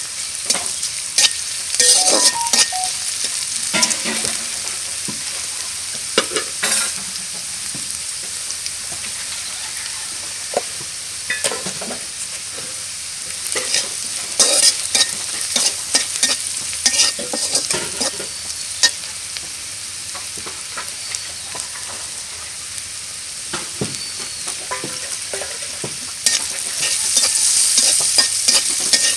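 Vegetable strips sizzling in hot oil in an aluminium karai, stirred with a metal spatula that scrapes and clicks against the pan. The sizzle is a steady high hiss, with the scraping coming in irregular bursts and busiest near the end.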